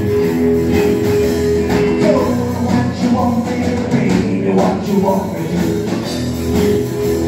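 Live band playing 1950s-style rock and roll, with a singer.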